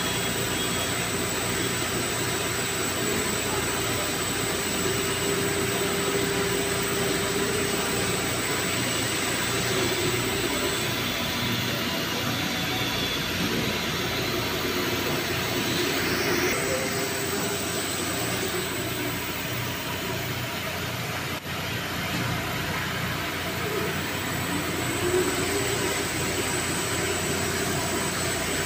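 Clarke diesel fire-pump engine running steadily, a continuous even drone with a hum under it.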